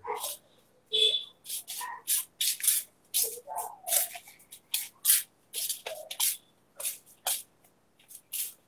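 A man's close-miked, half-whispered or muttered speech, heard as a quick string of short, breathy bursts with strong s-sounds and little voice.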